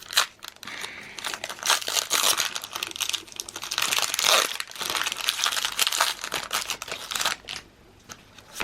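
Foil Pokémon booster-pack wrapper crinkling as it is handled and torn open by hand. The dense crackle dies down about seven seconds in.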